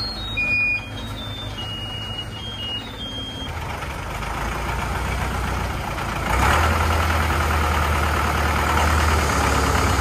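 Diesel engine of a homemade three-wheeled công nông dump truck running close by. It grows louder about three and a half seconds in and steps up to a heavier, steady drone about six seconds in. A few faint short high beeps sound in the first three seconds.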